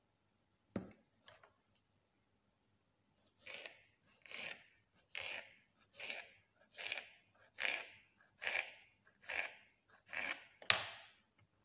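Sausages being cut into pieces: a sharp knock about a second in, then about nine even cutting strokes a little under a second apart.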